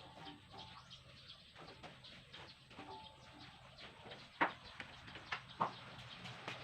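Scattered light clicks and knocks, with two sharp knocks a little over a second apart near the middle, over faint bird calls.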